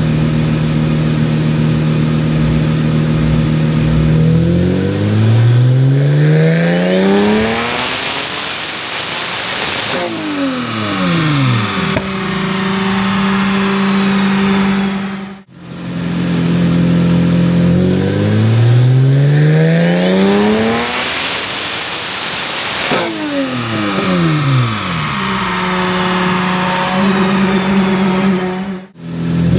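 Turbocharged Toyota 2GR V6 making two full-throttle pulls on a chassis dyno: each time the engine runs steadily, revs up in one long rising sweep with a loud rush near the top, then winds back down as it lets off.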